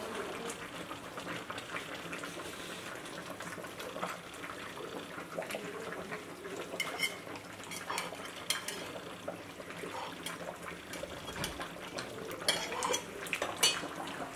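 Metal serving spoon scraping and clinking against a cast-iron cooking pot and a ceramic plate as food is dished out, over a steady low hiss. The clinks come more often in the second half, the sharpest near the end.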